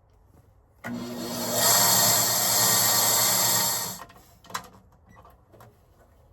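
A power tool runs briefly: a motor hum under a loud hiss. It starts about a second in, gets louder half a second later, and cuts off after about three seconds, followed by a single click.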